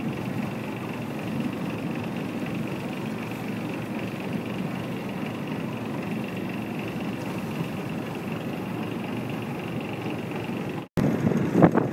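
A steady motor drone with a faint high whine. About eleven seconds in it cuts off briefly and gives way to gusts of wind buffeting the microphone.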